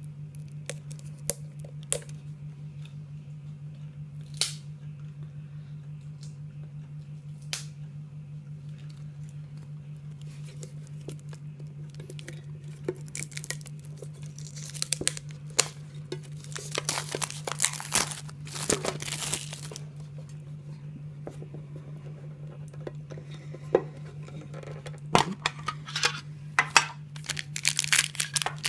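Clear plastic shrink-wrap being picked at and torn off a metal tin: scattered small clicks and scratches at first, then bursts of crinkling and tearing about halfway through and again near the end, over a steady low hum.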